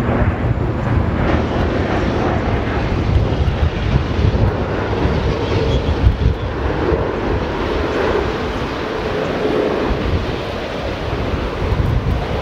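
Airbus A380's four jet engines running at low power as the airliner taxis slowly past, a loud steady jet rumble and hiss with a faint whine in the middle as the engines go by.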